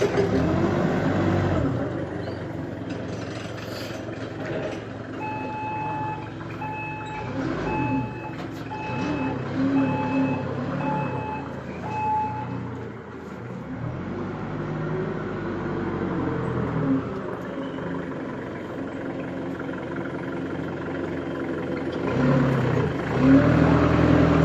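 Hyundai HDF20-5S diesel forklift engine running and revving up and down as it manoeuvres. A few seconds in, its reversing beeper sounds about eight times, roughly once a second.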